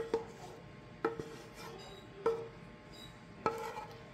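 A frying pan and utensil knocking and scraping against a ceramic bowl as food is emptied from the pan. There are about five short clinks, each ringing briefly, spaced roughly a second apart.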